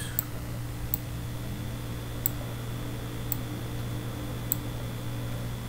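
A few short sharp clicks, about one a second and irregularly spaced, over a steady low hum and hiss: a computer mouse being clicked or scrolled.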